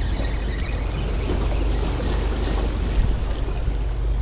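Wind buffeting the microphone over the wash of waves breaking against the rocks of a breakwater.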